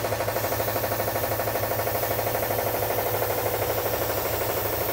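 Pneumatic die grinder running steadily under load as it elongates a hole in a steel chassis bracket: an even whine with a fast, regular chatter.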